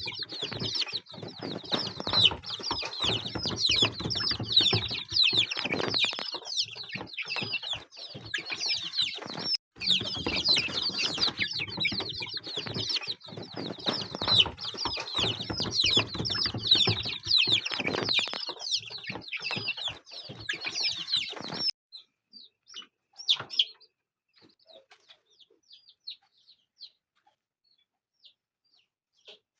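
A brooder full of young chicks peeping constantly, with rustling underneath. About twenty seconds in the sound drops off suddenly, leaving only a few faint scattered peeps.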